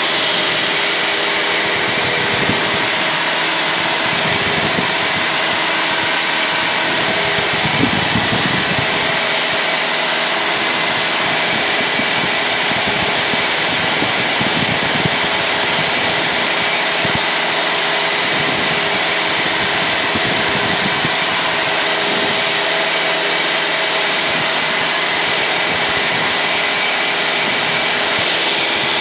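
Engine and propeller noise of a 1978 Cessna 172N Skyhawk in cruise, its four-cylinder Lycoming running at a steady power, heard through the headset intercom line as a constant drone with hiss.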